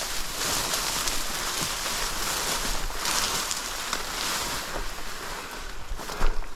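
Dense dry grass and cattails swishing and crackling steadily as someone pushes through heavy cover, with a louder brush about six seconds in.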